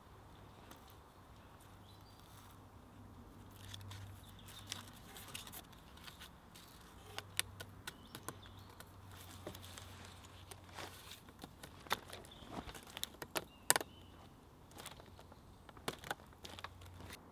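Twine being wrapped and pulled tight around a wooden post and log wall, with scattered small clicks, creaks and knocks from the cord and wood being handled; the sharpest knock comes about two thirds of the way in.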